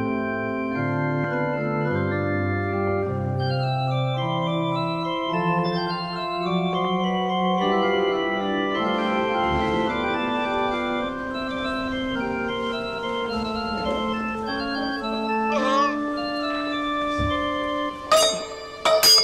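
Organ playing slow, sustained chords. Near the end a metal communion dish (paten) drops and clatters on the altar step twice, ringing.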